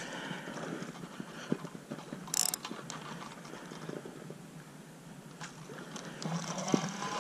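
Spinning reel being cranked to bring in a hooked small bass, its gears whirring and clicking, with a short sharper burst about two and a half seconds in.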